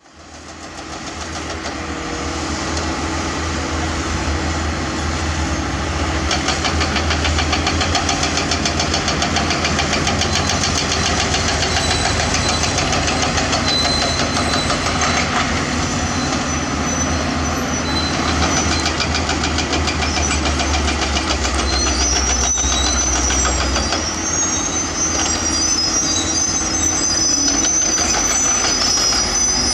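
Heavy construction machinery working: a diesel engine running with a deep steady rumble that fades in at the start, with high-pitched squealing joining in over the last several seconds.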